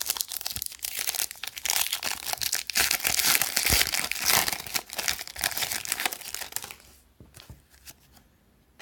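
A trading card pack's wrapper being torn open and crinkled, a dense crackling that stops about seven seconds in, followed by a few faint clicks.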